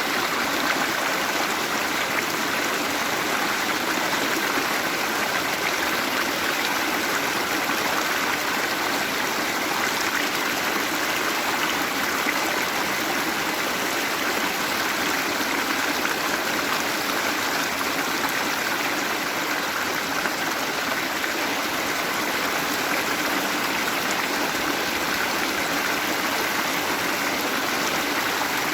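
Waterfall: water falling and rushing in a steady, unbroken wash.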